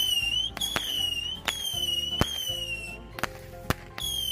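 Ground firework going off in a rapid string of whistling shots. Each is a sharp pop followed by a high whistle, about half a second long, that sinks slightly in pitch. Near the middle there is a loudest crack and then two pops with no whistle, before a last whistle near the end.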